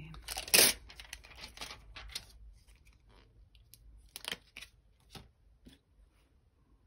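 Thin plastic crackling and clicking as a clear photopolymer stamp is peeled off its carrier sheet and handled. There is a sharp crackle about half a second in and a run of rustles for the first two seconds, then a few light clicks around four to five seconds.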